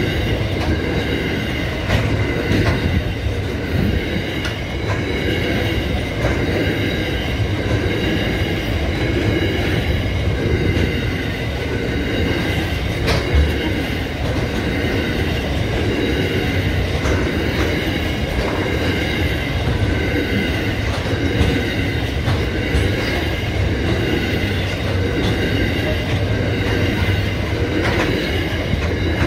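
Coal train hopper wagons rolling past: a steady rumble of steel wheels on the rails, with several steady high tones ringing over it and occasional sharp clicks, the loudest about halfway through.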